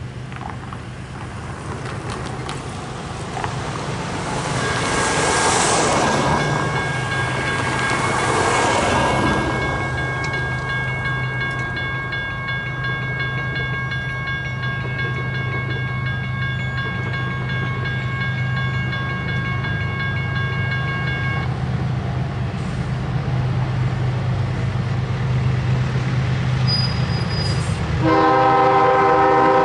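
Railroad grade-crossing warning bell ringing steadily for about seventeen seconds, then stopping, over a low engine rumble. Near the end the approaching CSX freight locomotive sounds its air horn, a loud multi-note chord.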